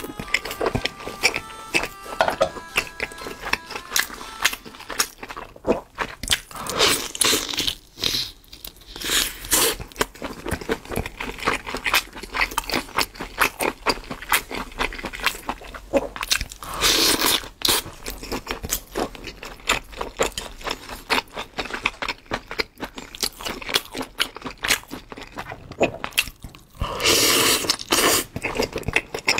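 Close-miked eating sounds: steady chewing with wet mouth clicks and smacks, broken by a few louder bites about 7, 9, 17 and 27 seconds in.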